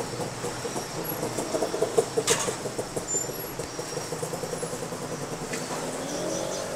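A motor vehicle engine running close by, pulsing quickly and then settling into a steady hum near the end, with a sharp click about two seconds in.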